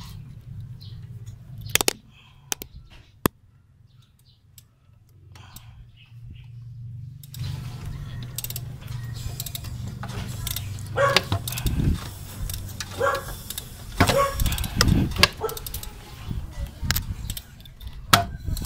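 Metal tools clinking, clanking and rattling on a Toyota 4K engine as its crankshaft pulley is turned by hand to bring the number 4 piston to top dead center. A few sharp clicks come early, then a busier run of knocks and rattles starts about halfway through, over a steady low hum.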